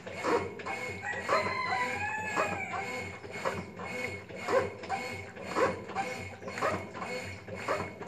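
Brastemp top-loading washing machine agitating a load in water, its agitator giving a repeating mechanical stroke about once a second.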